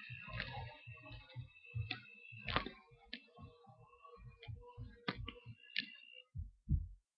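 Stick blender running in a shallow steel bowl of melted butter and sugar, with a steady hum through the middle and irregular clicks and knocks as the head works against the bowl and the mixture sprays out. The sound stops abruptly near the end.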